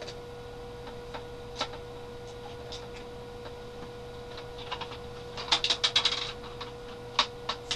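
Hard plastic toy parts clicking and rattling as they are handled: a single click early, a quick run of clicks about five and a half seconds in, and a few single clicks near the end, over a steady low hum.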